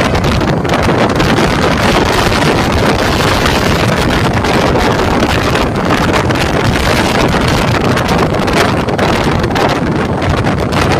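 Loud rushing noise of a bus going by, with wind buffeting the microphone.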